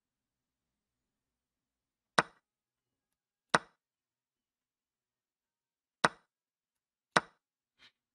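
Online chess move sounds: four sharp wooden piece clicks spaced one to two and a half seconds apart, with a fainter fifth click near the end, as moves land on the board.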